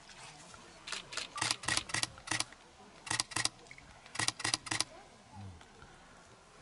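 Camera shutters firing in three bursts of rapid clicks, several a second: the first and longest about a second in, shorter bursts at about three and four seconds in.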